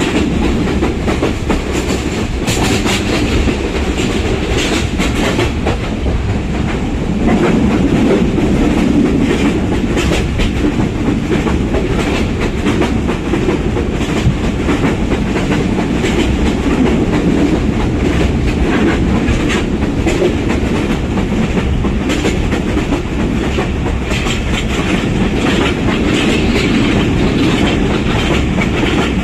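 Simanta Express passenger train running steadily at speed: its wheels rumble and click over the rail joints in a continuous clickety-clack.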